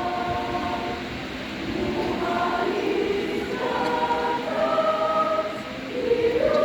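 Church choir singing in harmony, holding long chords that change about every second.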